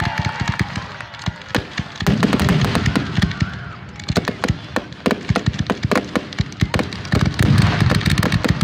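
Aerial fireworks display: shells launching and bursting, with many rapid crackling pops and heavy low booms throughout.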